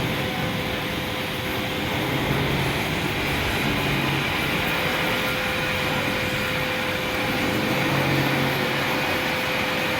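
Steady mechanical drone with an even hiss and a constant pitched hum.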